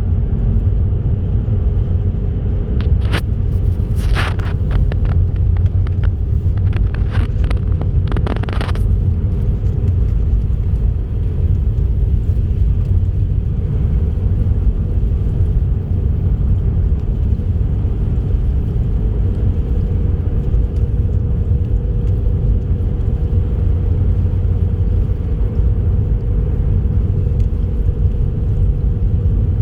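Car driving along a highway: steady low rumble of road and engine noise, with a brief run of sharp clicks and crackles a few seconds in.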